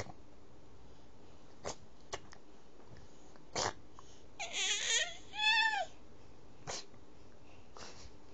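Baby's high-pitched squeals: a few short sounds, then two longer wavering squeals a little past halfway.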